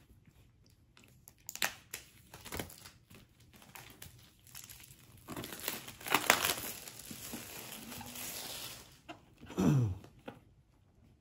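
Clear plastic shrink-wrap being torn and peeled off a laptop box, crinkling in bursts, loudest about six seconds in. Near the end comes a short squeak that falls steeply in pitch.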